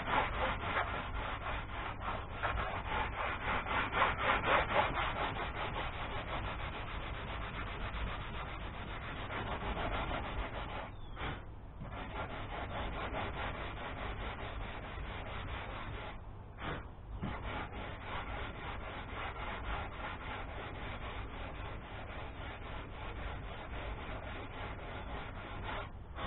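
Hand sanding of cured fairing filler on a fiberglass boat hull with mesh sandpaper on a sanding block: rapid back-and-forth scraping strokes. There are two short pauses, one about 11 seconds in and one about 16 seconds in.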